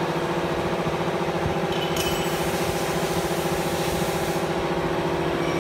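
Seamless PVC window-frame welding machine running with a steady hum. A hiss starts about two seconds in and stops a couple of seconds later.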